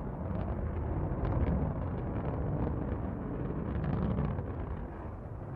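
New Shepard rocket's single BE-3 hydrogen-oxygen engine during ascent, heard from the ground: a steady low rumble with crackling.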